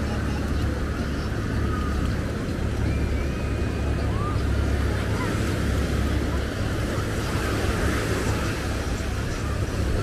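Steady outdoor street ambience dominated by a continuous low traffic rumble, with faint distant voices above it.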